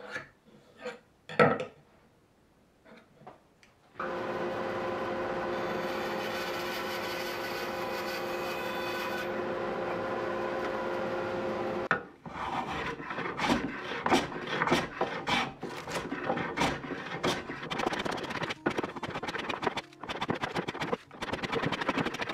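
A few light taps as a pencil and square are worked on a wooden neck blank. A power tool then runs steadily for about eight seconds and cuts off suddenly. After that, a hand plane shaves the end grain of the maple blank in a vise with quick, repeated strokes that speed up toward the end.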